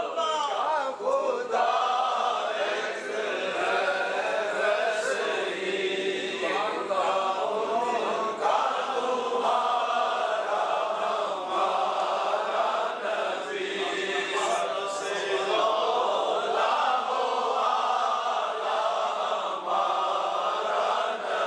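Male voices chanting a melodic religious recitation, the speaker at the microphone leading it.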